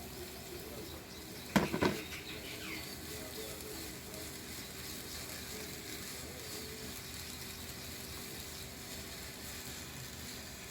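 Chopped apple pieces tipped into a hot pan of melted jaggery, landing with a short clatter about a second and a half in, then sizzling steadily.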